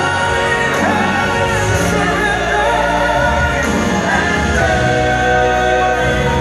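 Live Southern gospel music: a male lead vocalist singing over massed backing voices and the band. The sound is heard from the audience seats of a large hall.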